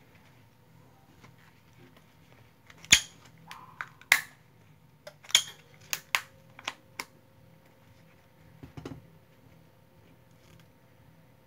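A run of about ten sharp plastic clicks and snaps, loudest about three seconds in, then a softer crackle near the end. Plastic opening picks are being worked under a phone's glued back glass to pry it loose.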